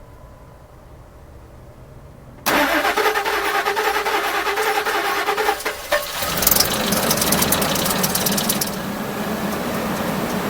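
Ford 5.4L Modular V8 being cranked by its starter for about three seconds, catching about six seconds in, running fast for a couple of seconds, then settling to a steady idle. It is the engine's first start after a new intake manifold, new spark plugs and cleaned fuel injectors.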